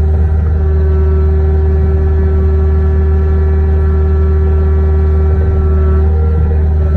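Kubota KX057-5 mini excavator's diesel engine running steadily while its smooth bucket grades soil, a low drone with a steady whining tone over it.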